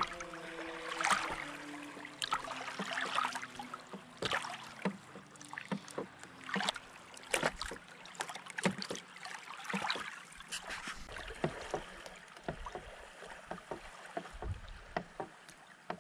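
Small lake waves lapping and splashing on a sandy shore, in many irregular little splashes over a soft wash of water. The last held notes of a music track fade out in the first two seconds.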